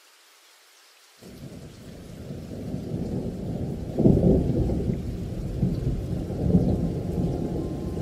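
Faint rain hiss, then a thunder rumble that breaks in about a second in, builds, and swells to its loudest clap about four seconds in before rolling on over the rain.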